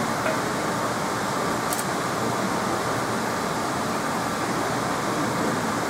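Steady rushing background noise of a restaurant kitchen at a teppan griddle, with a faint clink about two seconds in.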